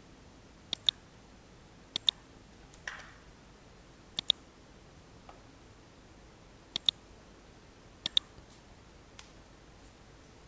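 Computer mouse buttons clicking five times, each click a sharp pair of ticks close together, with a few fainter ticks between them.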